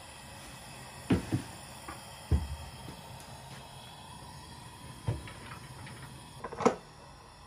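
About five separate knocks and clunks of objects being handled, spread over a few seconds above a steady faint hiss, with the sharpest one near the end.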